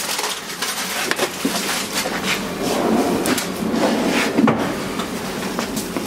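Hot cast iron skillet of roasted hog meat sizzling and crackling in its pan juices, with a few sharp knocks.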